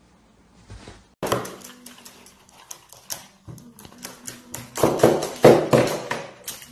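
A caique parrot on a tabletop making a rapid, irregular run of taps and clicks, growing louder and more scuffing near the end.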